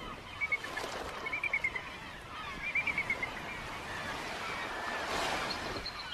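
Ospreys calling in short runs of rapid, high whistled chirps, three runs in the first three seconds, over a steady outdoor hiss of wind and water. A louder rush of noise comes about five seconds in.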